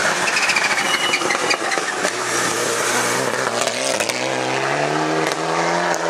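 Mitsubishi Lancer Evolution rally car's turbocharged four-cylinder engine under hard racing use. It opens with a dense burst of sharp crackles, then from about two seconds in the engine pulls under load, its revs climbing steadily.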